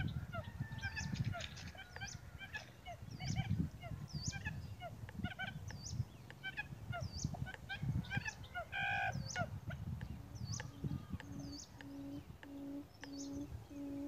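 Many small birds chirp over a gusty low rumbling. From about ten and a half seconds in, a quail's low, steady hooting call repeats about twice a second.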